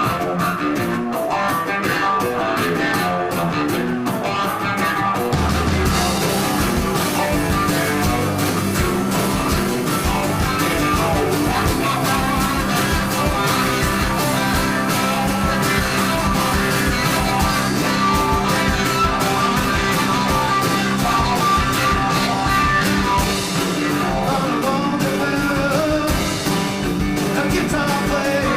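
Rock music with guitar, singing and a steady beat, playing continuously at a loud level.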